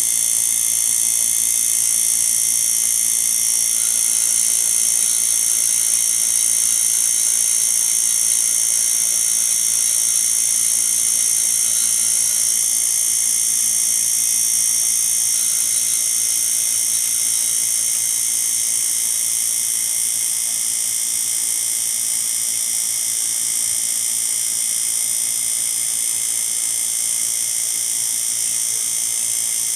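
A steady, high-pitched whine over hiss, holding evenly throughout and easing slightly a little past halfway.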